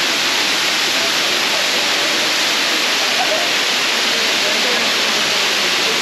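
Kanto Lampo Waterfall pouring down stepped rock into its pool, a loud, steady rush of falling water. Faint voices of people bathing sound underneath.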